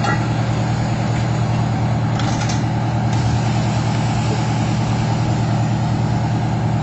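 Large truck engine idling steadily, a constant low drone. A faint short hiss about two seconds in.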